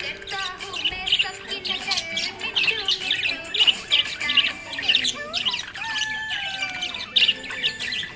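Budgerigar chirping and warbling: a rapid, continuous run of high chirps with gliding whistles and a few squawks.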